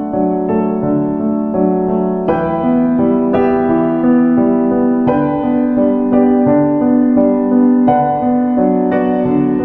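Background piano music, a slow melody of sustained notes over chords.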